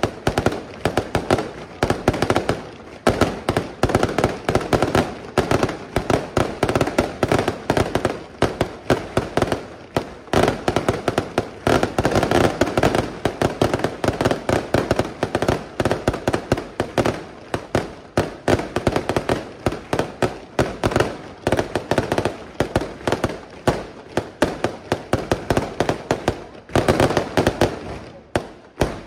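Aerial fireworks display: a dense, unbroken barrage of bangs and crackles from shells and stars bursting overhead, many reports a second.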